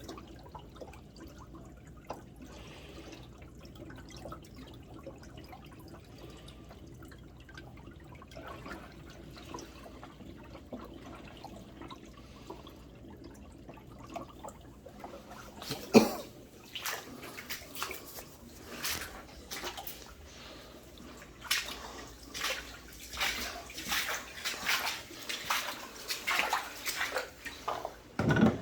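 Sump pump motor running with a steady low hum, then a single loud thump about halfway through as the hum stops. Irregular splashing and gurgling water follows, typical of water running back into the pit through a failed check valve.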